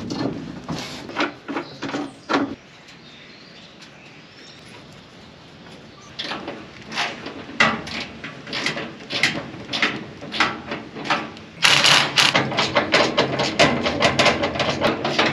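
Irregular metal knocks, clanks and scrapes as the rebuilt cleaning fan assembly of a John Deere 9770 STS combine is pushed up into place and worked at to get its bolts started. There is a lull a few seconds in, then the knocking picks up again and comes thick and fast near the end.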